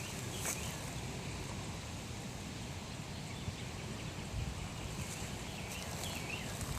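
Steady outdoor background noise with a few faint, short bird chirps, a couple of them near the end.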